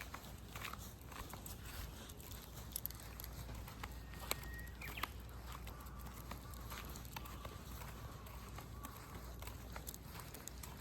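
Faint outdoor ambience with scattered light clicks and taps and a low steady hum; a faint thin tone sounds briefly a little before the middle, and another fainter one holds for a few seconds after it.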